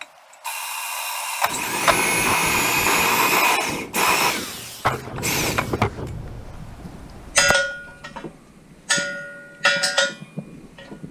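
Cordless drill boring a hole through a steel bracket on square steel tubing, running steadily for a few seconds with a rising whine partway through. Several sharp metallic clanks with a ringing tone follow near the end.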